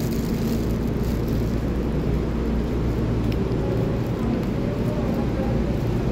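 Taiwan Railway EMU3000 electric multiple unit pulling into the platform and slowing to a stop: a steady low rumble of wheels and running gear with faint hum tones from the train.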